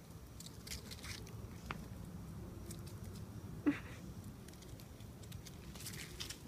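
Two puppies scuffling and playing on a concrete path: light pattering, scratching and leaf-rustling from their paws, with one short, sharp yip about three and a half seconds in.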